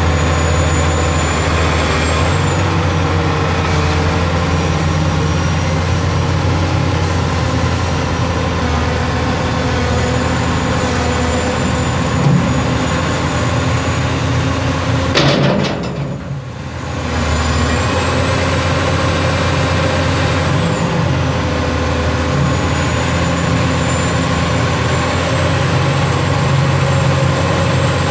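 Hitachi ZX450LC excavator's six-cylinder diesel engine running steadily, with a thin high whine that rises, holds and falls away several times. The sound dips briefly about halfway through.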